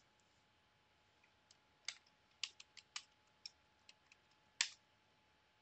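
Computer keyboard typing: about nine separate key clicks, unevenly spaced, as a password is entered at a sudo prompt. The last keystroke, near the end, is the loudest.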